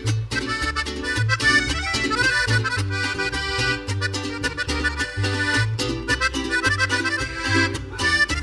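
Live cumbia band playing an instrumental break, an accordion carrying the melody over a stepping bass line and a steady beat.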